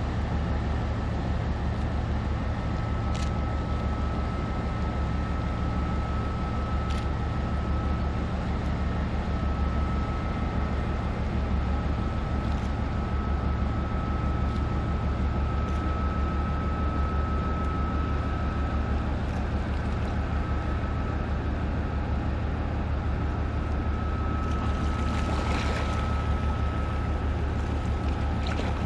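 Steady low drone of the Great Lakes freighter Lee A. Tregurtha's engines and machinery as it passes, with a thin steady high whine above it.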